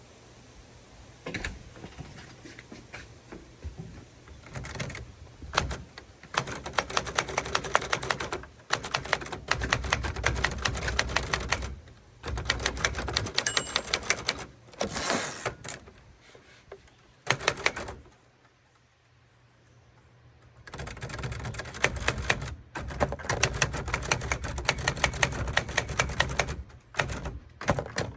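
Typewriter keys being struck in rapid runs, with brief pauses between bursts and one longer pause about two-thirds through before the typing resumes.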